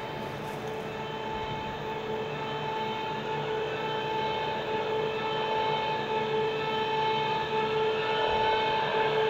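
Steady droning sound with two held tones, a low and a higher one, over a soft hiss, slowly swelling in loudness: the ambient opening of a music video's soundtrack.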